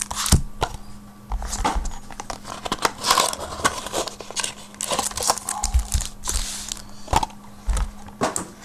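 Trading card packs being pulled out of their cardboard boxes by hand: irregular crinkling and rustling of the pack wrappers with sharp clicks and taps of cardboard.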